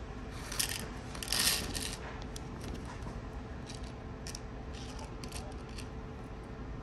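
Small glittery nail charms pouring from a plastic zip bag into a hard clear plastic box, a rattling clatter in two bursts in the first two seconds. This is followed by light scattered clicks as fingers sort through the charms in the box.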